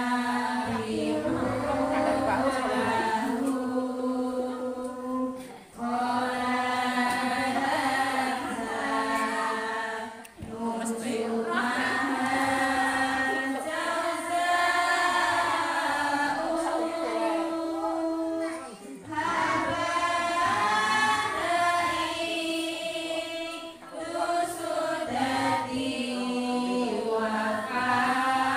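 A group of women chanting a Quran recitation together in unison, in long melodic phrases broken by short pauses for breath.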